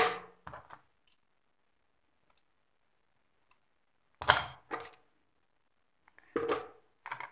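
Sharp clicks and clinks of hand tools and small circuit boards being handled on a workbench: a knock at the start, another about four seconds in, and a few more near the end, with silence between.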